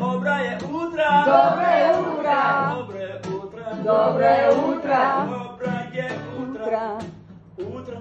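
A man singing live over a strummed acoustic guitar.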